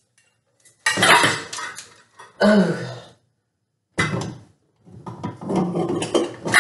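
Metal parts of a ceiling fan clinking and rattling in short irregular bursts as the fan is held up and fitted to its ceiling mounting bracket, with a sharp knock about four seconds in.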